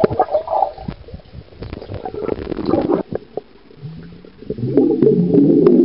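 Air bubbling and gurgling underwater as a swimmer puffs breath from his mouth to form bubble rings, heard through a camera under the water. Irregular bubbly bursts with small clicks, quieter in the middle and loudest near the end.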